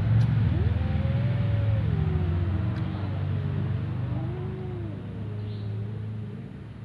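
Domestic cat yowling: long, low, drawn-out meows that rise and fall in pitch, one long call and then a shorter one, over a steady low rumble.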